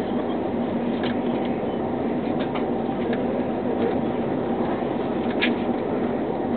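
A passenger train running at speed, heard inside the carriage: a steady rumble with a constant hum, dotted with a few brief high squeaks or clicks, the clearest about five seconds in.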